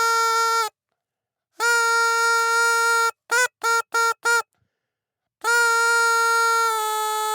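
Party horn blown in a reedy, buzzing tone: a long steady blast that stops just under a second in, another long blast, four quick short toots, then a long blast that begins to waver in pitch near the end.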